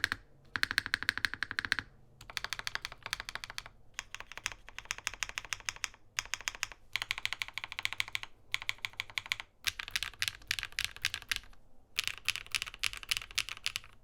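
Mechanical keyboard with Keygeek Purple Dawn linear switches and Keykobo COL keycaps being typed on fast, in bursts of rapid keystrokes separated by short pauses. Each key press gives a crisp, full clack.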